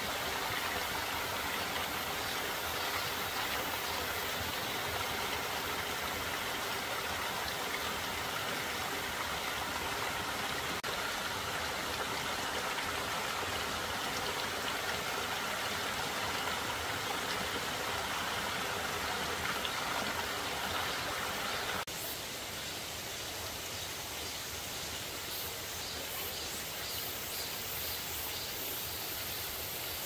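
Stream water running steadily. About two-thirds of the way through, the sound turns a little quieter.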